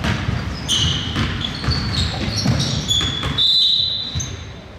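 Basketball game play: the ball bouncing on a hardwood court and players' sneakers squeaking, a string of short high squeaks with one longer squeak about three and a half seconds in.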